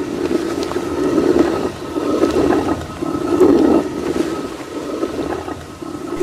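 Stone hand mill grinding wheat: a rough, rumbling scrape of stone on stone that swells and eases about once a second as the stone is turned.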